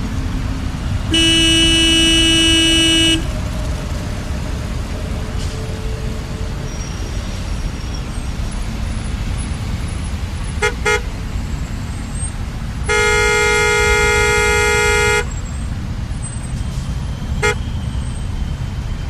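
Traffic jam: a steady rumble of idling traffic with car horns over it. A long horn blast about a second in, a quick double toot around ten seconds in, another long blast at a different pitch near thirteen seconds, and a short toot near the end.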